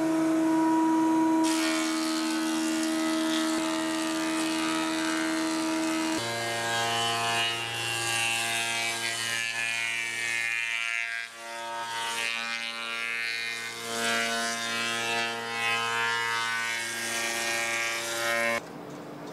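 Woodworking machinery running: a steady motor whine with the hiss of wood being machined. About six seconds in it switches abruptly to another machine's deeper hum, which stops suddenly near the end.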